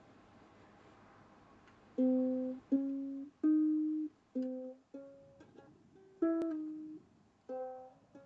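Ukulele strummed, starting about two seconds in: a slow run of about seven single chords, each struck sharply and left to ring and fade before the next.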